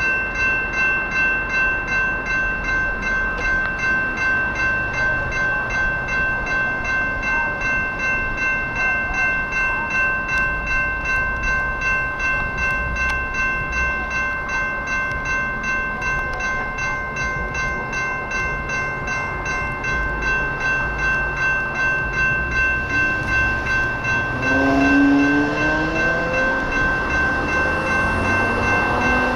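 Railroad crossing's General Signals Type 2 electronic bell ringing steadily, about two clanging dings a second, while the crossing is activated. About 25 s in, the light rail train comes through and adds a louder whine that rises in pitch.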